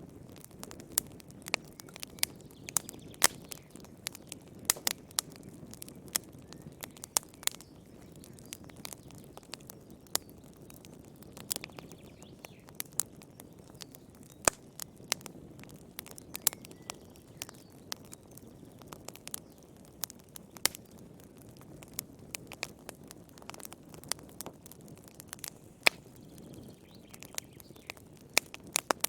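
Wood fire burning in a fireplace: irregular sharp crackles and pops over a soft low rush of flame.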